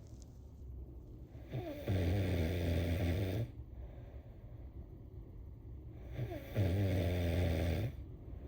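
A sleeping person snoring: two long, low, buzzing snores about four and a half seconds apart, each opening with a quick drop in pitch.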